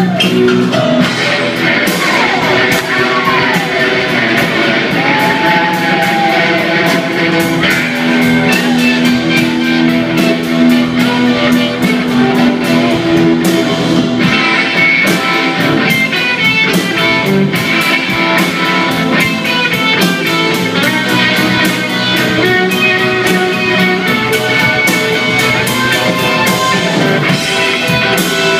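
Live rock band playing, with electric guitar to the fore over bass, drum kit and keyboard, recorded from the audience.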